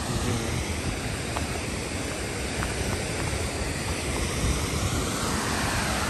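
Steady rush of a river cascade tumbling over rocks, mixed with wind buffeting the microphone as a low, uneven rumble.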